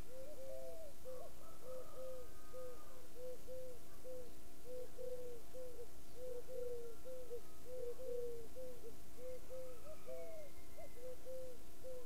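A quick run of short, low hooting calls, two to three a second and sometimes overlapping as from more than one caller, with a brief pause partway through. A few thin, higher calls sound now and then.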